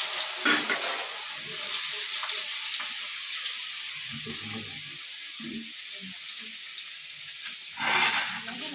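Cut potatoes sizzling in hot oil in a kadhai, freshly added and being stirred with a metal spoon. The frying hiss is steady and eases off slowly, with a short louder burst near the end.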